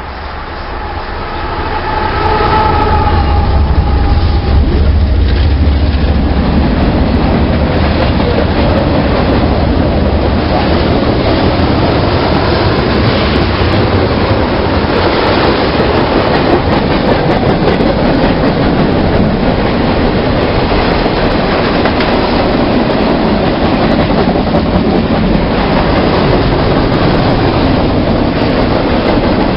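A train passing close by. The locomotive's low engine drone builds over the first two seconds and is loudest for a few seconds, then the cars roll past steadily, with wheels clicking over the rail joints.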